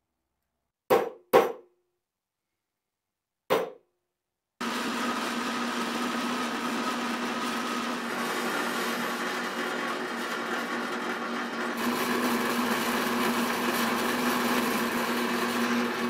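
Three sharp knocks in the first few seconds, then an electric drill running steadily as its bit bores a hole through saw-blade steel, growing a little louder about two-thirds of the way through.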